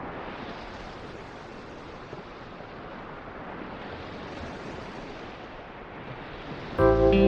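Ocean surf washing over rocks, a steady rushing wash that swells and eases. Near the end, guitar music cuts in abruptly and louder.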